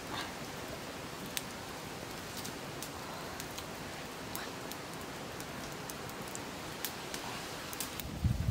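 Wood campfire burning, with a steady hiss and scattered sharp crackles and pops from the embers. A soft low knock near the end as the wooden sticks of the grill rack are set down.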